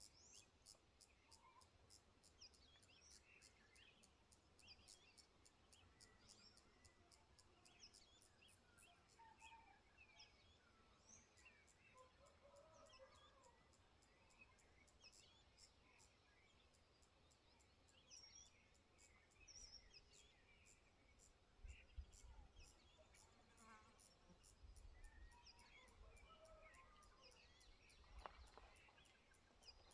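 Faint countryside nature ambience: an insect chirping in regular high pulses, two or three a second, with scattered short bird chirps over it and a few low rumbles in the second half.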